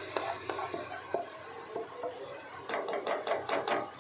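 Spatula scraping and knocking in a kadhai as grated carrots are stirred together with mawa for gajar halwa. There are scattered scrapes, and a quick run of them near the end.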